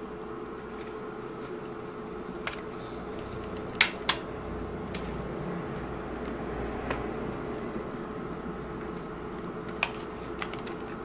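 A few light plastic clicks and taps as the dial faces of a VW Fox instrument cluster are handled and lifted off, the sharpest two close together about four seconds in, over a steady background hum.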